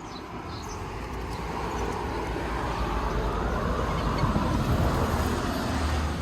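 A vehicle going by: a rushing rumble that swells over about four seconds and then eases off.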